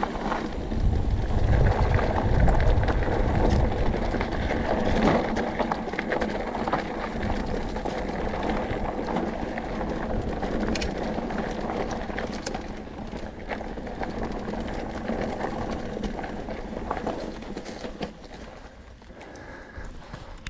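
Enduro mountain bike riding down a loose, rocky dirt singletrack: tyres crunching over dirt and stones, with the bike rattling in short clicks and knocks. Heavy wind rumble on the microphone, strongest in the first few seconds, and the noise eases over the last few seconds.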